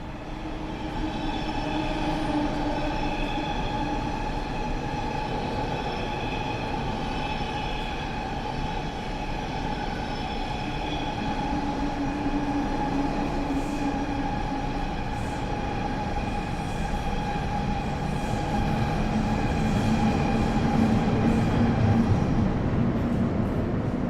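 Underground train running: a continuous rumble with a steady high whine over it, and faint clicks in the second half. It grows somewhat louder toward the end.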